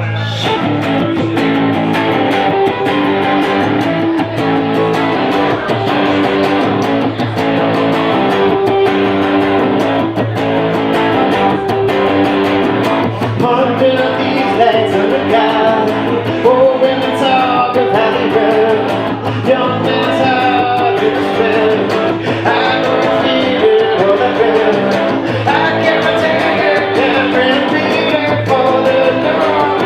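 Live rock-blues band music led by electric guitar, with a steady beat.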